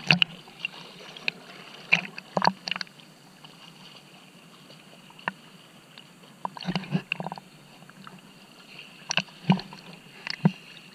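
Water splashing and sloshing in short, irregular bursts around a swimmer paddling.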